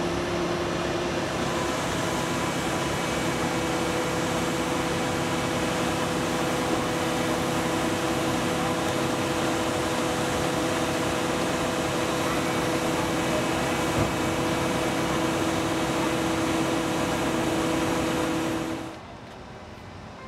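Mobile crane's engine running steadily during a lift, a dense mechanical noise with a steady hum, which falls away sharply about a second before the end.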